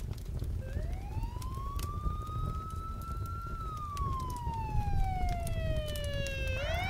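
Emergency vehicle siren wailing: one slow rise in pitch over about three seconds, a slower fall, then rising again near the end, over a low rumble.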